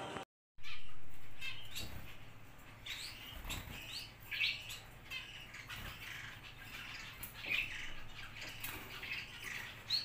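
A cage of zebra finches chirping: many short, high chirps at irregular intervals. Just after the start there is a louder noise that fades over about a second and a half.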